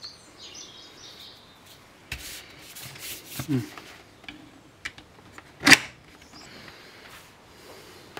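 Hard plastic knocks and clicks from handling a motorcycle helmet and fitting a GoPro camera to its chin mount, with one sharp, loud click a little past halfway.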